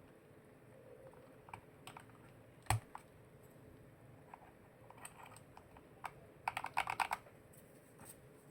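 Keys being typed on an Epomaker SK98 mechanical keyboard with RK Snow King switches and MOA-profile keycaps: scattered single keystrokes, one sharper stroke a little under three seconds in, then a quick run of about a dozen keystrokes around six and a half to seven seconds in.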